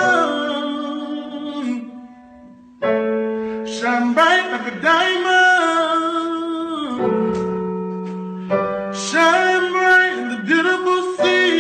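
A man singing long, held notes in melodic phrases with keyboard accompaniment. The music fades about two seconds in and resumes just before the three-second mark.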